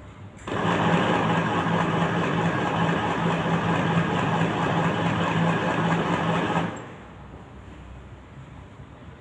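Electric sewing machine running as it stitches a seam, starting about half a second in and stopping after about six seconds.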